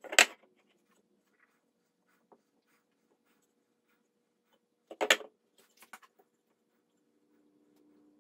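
Hardwood boards being shifted and set down into pipe clamps during a glue-up: two short scraping knocks about five seconds apart, the second followed by a few light clicks.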